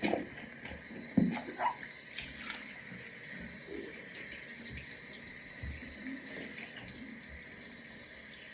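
Tap water running into a bathroom sink while sneakers are rinsed, a steady splashing flow. A couple of soft knocks in the first second or so, from a shoe being moved about in the sink.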